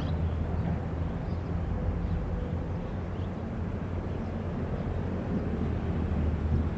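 Diesel engine of heavy construction machinery running at a steady speed, a low even hum.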